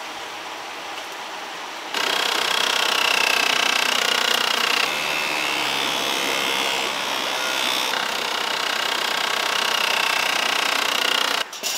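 Bamboo water wheel turning, with water splashing and spilling from its tubes and a steady, wavering high-pitched buzz over it. The sound comes in abruptly about two seconds in.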